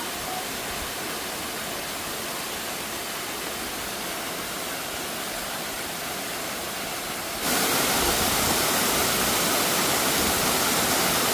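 Steady rush of falling water from a waterfall, jumping abruptly louder about seven and a half seconds in.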